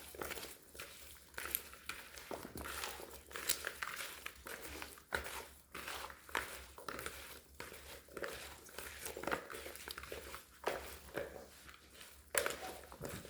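Irregular rustling, crinkling and light clicks and knocks of hands handling food at a kitchen counter during soup preparation, over a faint steady low hum.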